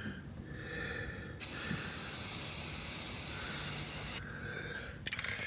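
Aerosol spray-paint can spraying: one steady hiss of about three seconds, starting about a second and a half in. A few light clicks follow near the end.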